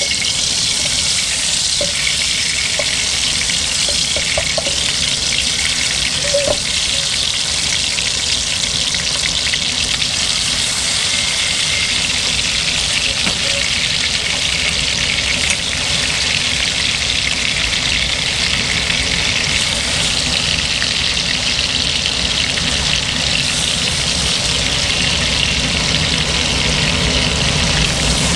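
Marinated chicken wings sizzling as they pan-fry in oil over low heat in a stainless steel wok, a steady hiss throughout.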